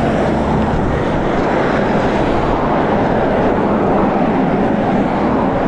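Wind rushing over the microphone of a camera carried while cycling along a road, a steady dull noise.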